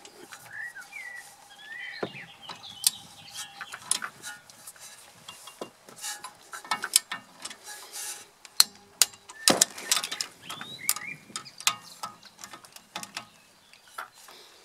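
Torque wrench ratcheting on a rear brake caliper bolt as it is tightened, a run of quick ratchet clicks and metal-on-metal clicks, the sharpest about halfway through.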